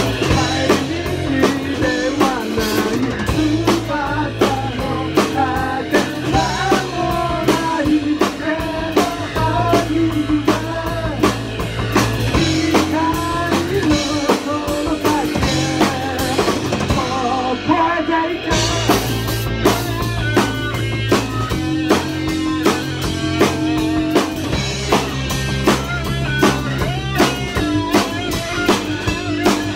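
Live rock band playing: electric guitar, bass guitar and drum kit under a sung lead vocal. The drums drop out for about a second a little past halfway, then come back in.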